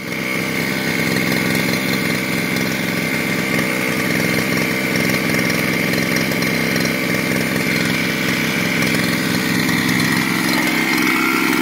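Chinese brushcutter's two-stroke engine, fitted with a 52 cc cylinder kit, idling steadily with a high whine over its low running note. Its speed lifts slightly near the end.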